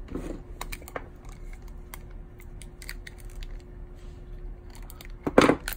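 Kapton tape being pulled off its roll and pressed onto the back of a circuit board, with light crackles and ticks. Near the end comes one sharp snip as flush cutters cut the tape.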